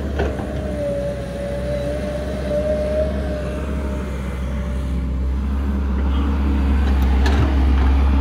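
XCMG XE135B excavator's Isuzu 4BG1 four-cylinder diesel running steadily as the machine digs and swings its bucket of soil. A thin steady whine rides over the engine through the first half, and the engine grows slightly louder toward the end.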